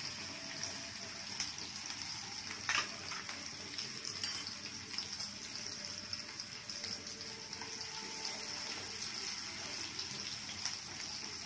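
Chopped onions and garlic frying in hot oil in a kadai: a steady sizzle, with a few short clicks of a steel spoon against the pan.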